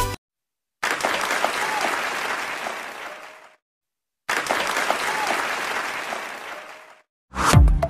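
Applause sound effect: a crowd clapping, played twice, each burst fading out after about three seconds with a short silence between. Music with a heavy beat starts just before the end.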